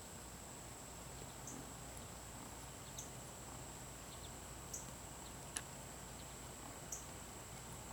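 Faint scattered clicks from wire strippers and wire being handled while insulation is stripped off the wire ends, about one every second or so, over a steady faint high-pitched whine and low hum.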